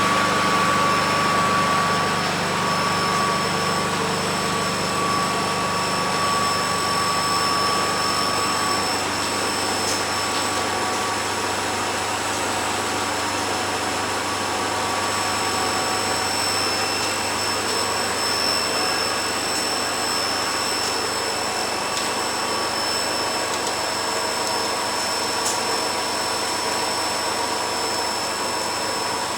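Machinery used for gas-pipeline reconstruction running steadily at a constant load: an engine drone with steady high-pitched whines over it. A mid-pitched whistle in the mix fades out about nine seconds in.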